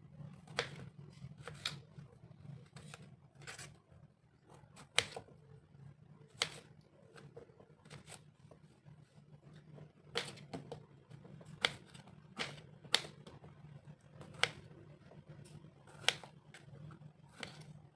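Kitchen knife slicing long purple eggplant into chunks on a wooden cutting board: sharp irregular taps of the blade striking the board, about one a second with a pause of a few seconds near the middle, over a low steady hum.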